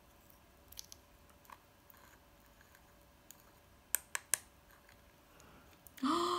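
Small plastic glitter pot being handled and its lid unscrewed: faint rubbing and light clicks, then three sharp plastic clicks about four seconds in as the lid comes off. A short rising vocal sound near the end.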